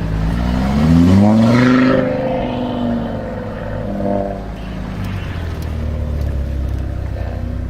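Audi RS3 8V's turbocharged 2.5-litre inline-five through a Milltek exhaust, revving up for nearly two seconds and dropping back, then a second, shorter blip about four seconds in before it settles to a steady low idle.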